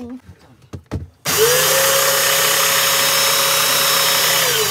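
Electric motor and pump of a Wagner Control Pro airless paint sprayer switched on for a test run: about a second in it comes up to speed with a rising tone and runs steadily at one pitch, then near the end it is switched off and winds down with a falling tone.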